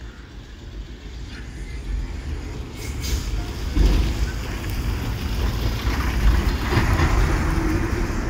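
A bus drives up and passes close by, its engine and tyres rumbling louder over the first few seconds, with a steady engine note as it goes past.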